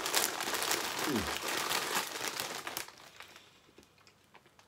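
A crisp packet of Walkers Baked Wotsits crinkling loudly as it is handled for about three seconds, then going almost quiet.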